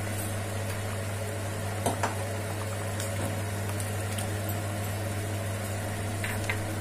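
Onion-tomato masala gravy with coconut milk bubbling and sizzling in a frying pan, over a steady low hum. Two sharp knocks sound about two seconds in, and two fainter ticks near the end.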